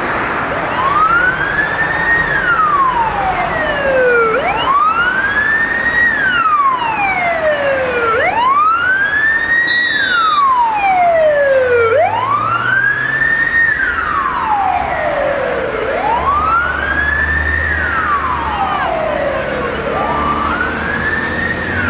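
An emergency vehicle's siren wailing in slow cycles, each rising quickly and then falling slowly, about every four seconds.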